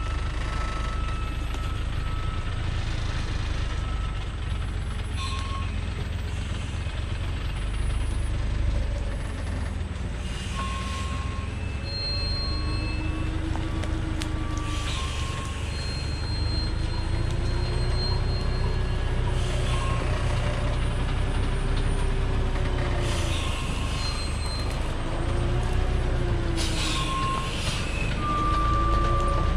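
Diesel engine of an old Thaco Forland truck loaded with acacia logs running slow and low as it creeps down a steep dirt slope, growing louder as it nears. A short brake hiss comes every few seconds, with brief squeals from the brakes and truck body.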